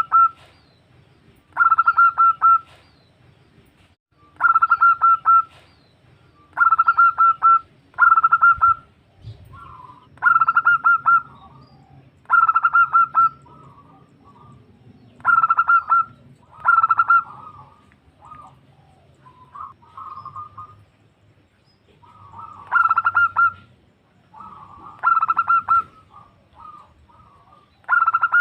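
Female zebra dove (perkutut) calling: repeated phrases of rapid cooing notes, each about a second long, coming roughly every two seconds, with softer broken notes between them.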